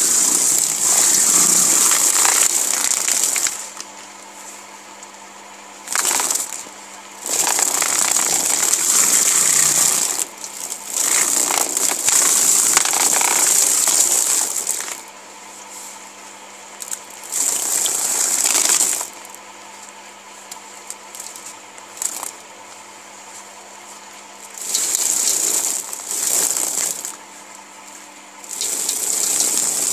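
Electric poultry-plucking machine: a belt-driven drum with plucking fingers hums steadily as it spins. Loud, dense rattling bouts of a few seconds each come and go several times as a scalded chicken is pressed against the fingers and its feathers are stripped off.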